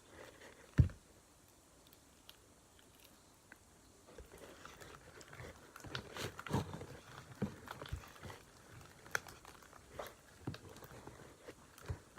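Homemade slime being mixed and squished in a bowl: irregular sticky squelches and small clicks, with a single sharp knock about a second in.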